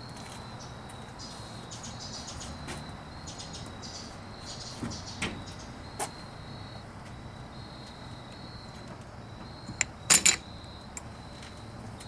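A few light clicks, then about ten seconds in a quick double clack as the Posi-Lok's shift fork is pulled over by its cable and its key clip stops against the case. A faint high chirping comes and goes underneath.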